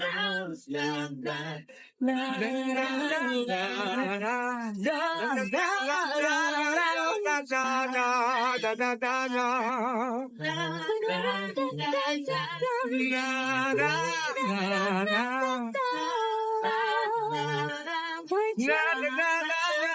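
Wordless singing: a high voice holding long, melismatic runs with strong vibrato, with a lower voice joining in short phrases beneath it, with little or no accompaniment.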